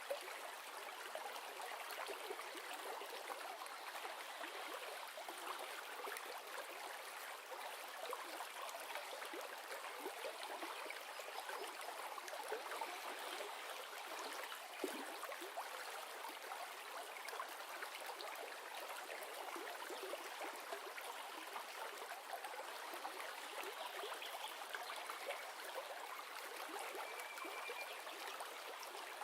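River flowing steadily: an even rush of water with many small trickles and splashes, with no break or change.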